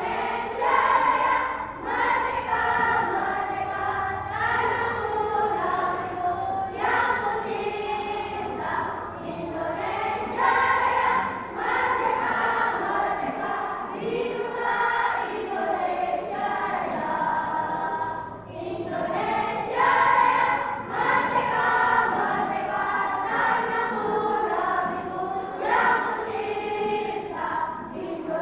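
Elementary-school children's choir singing, with short breaks between phrases every few seconds.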